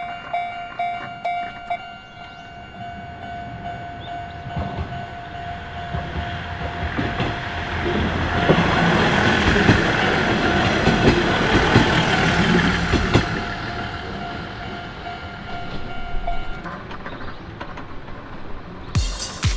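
Japanese level-crossing alarm ringing in a rapid repeating ding, with the crossing's two bells slightly out of step. A train passes over the crossing with its wheels clattering on the rail joints, swelling to a peak midway and fading. The bells stop about three-quarters of the way through, and music starts just before the end.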